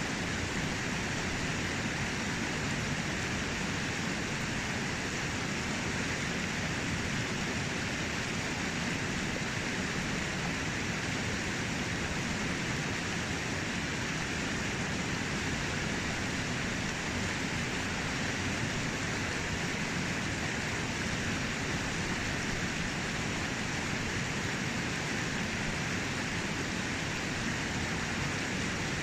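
River water rushing over a shallow, rocky riffle: a steady, unbroken rush.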